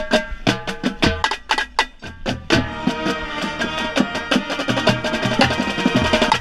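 Marching band playing, led by tenor drums (quads) close by, striking rapid pitched strokes. Sustained band chords swell in under the drumming about two and a half seconds in.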